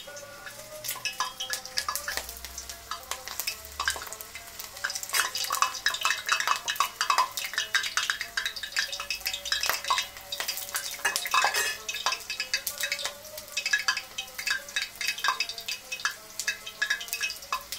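Hot cooking oil in a kazan sizzling and crackling around a piece of onion frying in it, with irregular pops that grow denser about five seconds in. The onion is put in to draw the bitter substances out of the oil.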